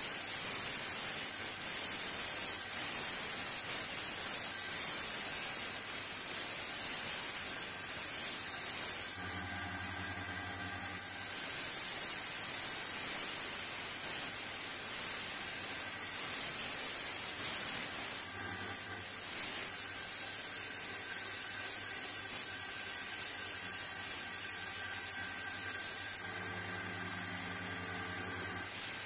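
Bench grinder's wire wheel scrubbing rust off a steel pipe wrench part pressed against it, a steady high hiss. The hiss stops twice, about nine seconds in and again near the end, as the work is lifted off, leaving the grinder motor running with a steady hum.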